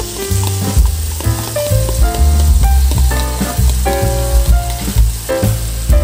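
Food sizzling as it fries in hot oil, a steady hiss, under background music with a strong bass line and a melody.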